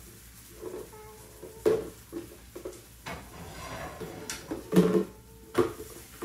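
Irregular knocks and clatter as a toddler tips and handles a large clear plastic jar against a plastic booster-seat tray, with small objects shifting inside it; the loudest knocks come near the end.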